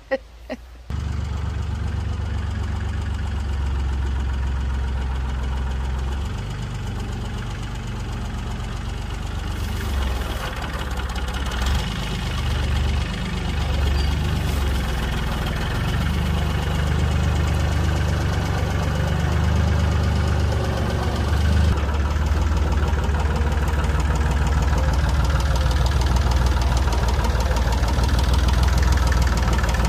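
Rough-terrain forklift engine running as the forklift carries a bulk bag of stone, starting about a second in, its revs rising and falling a few times.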